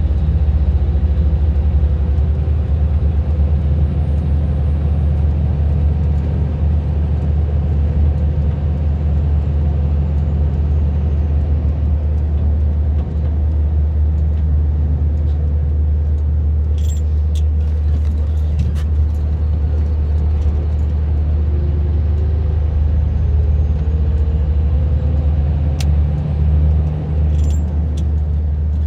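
Steady low drone of a vehicle's engine and tyre noise while driving, heard from inside the vehicle. A few sharp clicks come in the second half.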